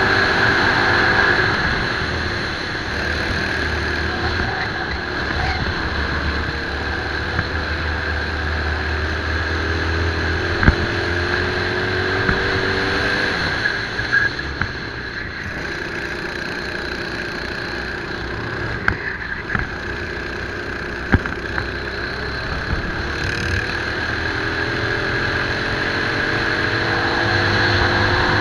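Racing kart engine heard from the kart's onboard camera, its pitch climbing along each straight and dropping back for the corners several times. A few sharp knocks stand out over the engine.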